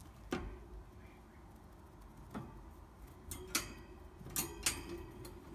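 A handful of sharp clicks and light rattles from the wire bars of a pet rat's cage, as a thin stick is poked through and knocks against them; one near the start and a cluster in the second half.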